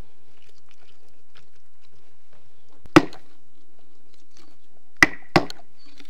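Three sharp chops of a knife through a large silver carp onto a cutting board, as its head is cut off. One comes about halfway through, then two in quick succession near the end.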